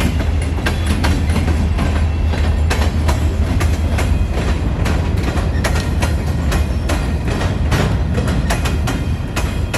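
Norfolk Southern freight train of covered hopper cars rolling past close by: a steady low rumble with wheels clacking irregularly over the rail joints.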